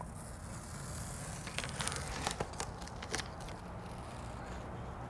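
Blue painter's masking tape being peeled off a car's window trim through still-tacky roll-on bedliner coating: a crackly tearing in short bursts through the middle, over a steady low hum.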